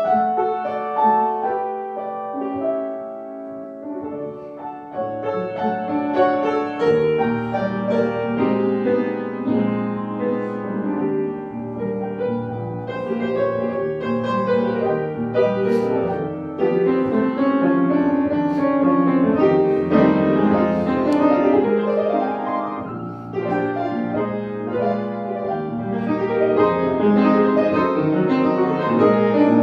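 Solo grand piano playing a hymn arrangement, quiet and sparse for the first few seconds, then fuller chords and louder.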